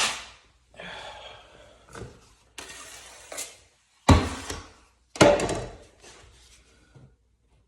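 Wide drywall taping knife drawn across wet joint compound to feather a drywall butt joint: a run of scraping strokes, with two louder, sudden knocks about four and five seconds in.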